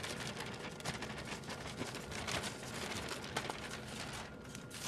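Parchment paper crinkling and crackling as it is handled, a dense run of small crackles that thins out about four seconds in.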